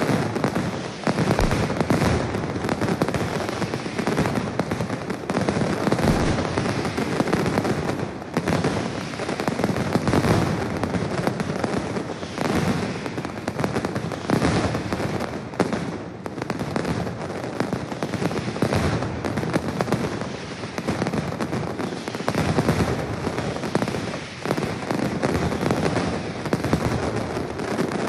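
Mascletà: a dense, unbroken barrage of masclets (ground firecrackers) bursting in rapid succession, a continuous rattle of bangs that swells and eases slightly every few seconds.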